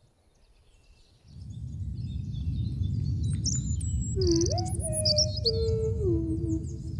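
After about a second of near silence, birds start chirping and whistling over a steady low rumble.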